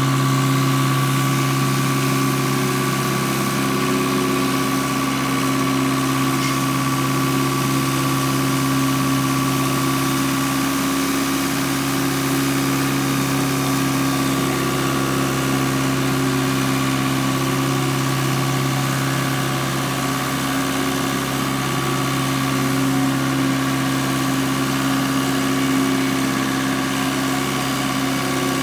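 1996 Rosco RB48 rotary broom sweeper running at a steady engine speed, with a constant drone and a steady high whine over it, as its broom sweeps the dirt.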